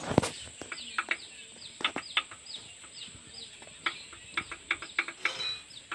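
Small birds chirping over and over in short falling chirps. Scattered sharp metallic clicks and taps come from the diesel engine's valve rocker arms as they are rocked by hand to check valve clearance.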